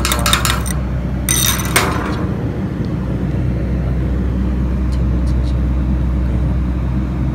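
Slag being knocked and scraped off a freshly stick-welded fillet bead: a quick clatter of small hits and scraping in the first second, and another short burst about a second and a half in. A steady low hum runs underneath, with a few faint ticks later.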